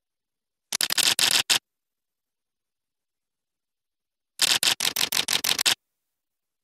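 Two short bursts of rapid, sharp mechanical clicking, several clicks a second, with dead silence between: the first burst starts just under a second in and lasts under a second, the second starts about four and a half seconds in and lasts just over a second.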